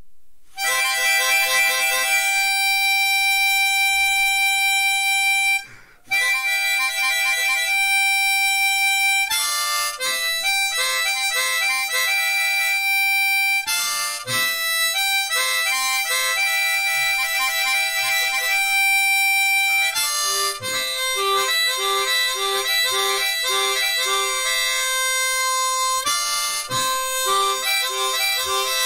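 Harmonica music: long held chords at first, a brief break about five and a half seconds in, then quicker changing notes.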